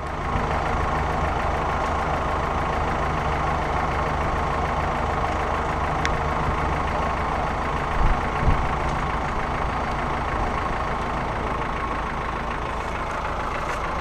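Land Rover's engine running at a steady idle while its electric winch is worked from a handheld remote to pull a tree over. Two short dull knocks come about eight seconds in.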